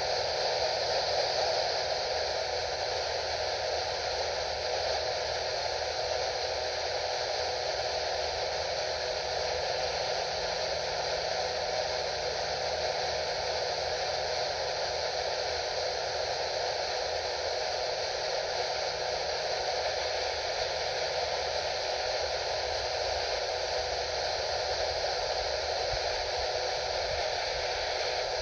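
Radio receiver putting out a steady hiss of static, with a low hum underneath.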